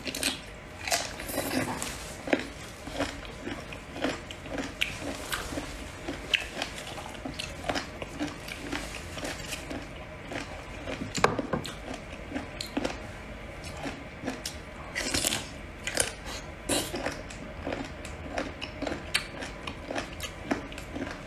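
Close-miked mouth sounds of someone biting and chewing sea cucumber dipped in chili oil: irregular clicks and smacks of lips and teeth, a few every second.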